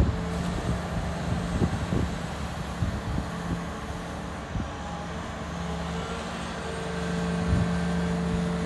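Caterpillar 330D2 L excavator's diesel engine running steadily, with a few short knocks, getting slightly louder about seven seconds in.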